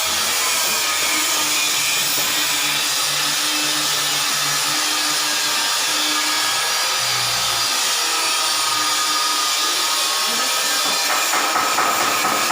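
Steady, loud running noise of power-tool or machine work in a metal workshop, with rapid repeated knocks joining in near the end.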